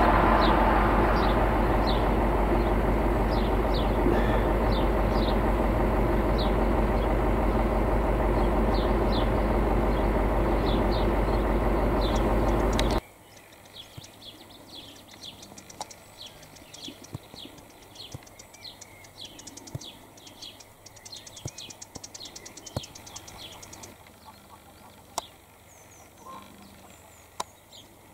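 A small bird chirping repeatedly, short high notes about twice a second. For the first half a loud steady low noise sits under the chirps and cuts off suddenly about halfway through.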